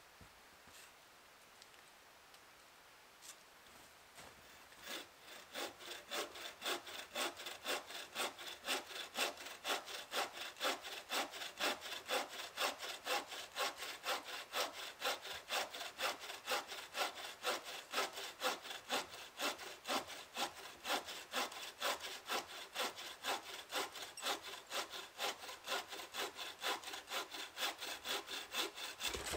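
Hand-made bow saw cutting through a dead standing tree trunk. It starts about five seconds in and keeps up an even back-and-forth rhythm of rasping strokes, two or three a second.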